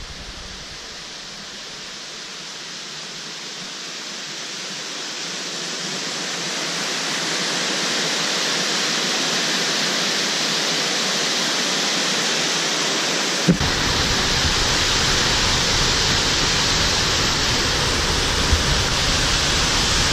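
A steady rushing noise, like water or wind, that swells over the first several seconds and then holds; a single click comes about thirteen seconds in, after which the noise takes on a deeper rumble.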